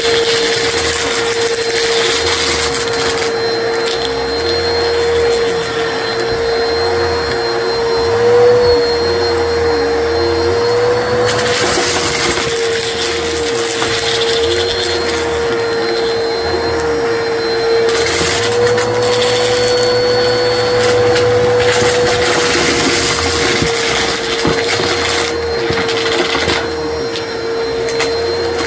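Upright vacuum cleaner running with a steady motor whine while its brushroll crunches and crackles through small pink plastic bits on carpet. The crunching comes and goes in bouts as the vacuum passes over the debris.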